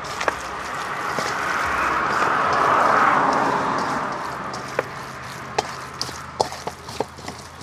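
A passing vehicle: its noise swells to a peak about three seconds in and then fades. Scattered sharp taps and clicks sound throughout.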